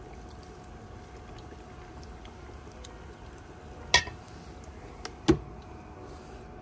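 Hot oil bubbling and sizzling steadily in a T-fal electric deep fryer with battered pork chops frying in it. A sharp clack about four seconds in and a louder one just after five seconds, the second as the fryer's lid is snapped shut.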